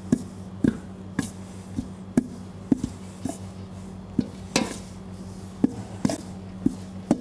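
Metal flat beater from a stand mixer, worked by hand in a stainless steel mixer bowl, knocking against the bowl about twice a second while creaming soft butter into icing sugar.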